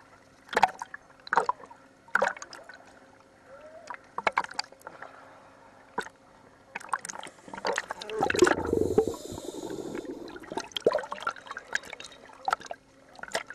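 Underwater sound on a diver's camera: irregular clicks and knocks, with a burst of bubbling from the diver's scuba exhalation about eight seconds in.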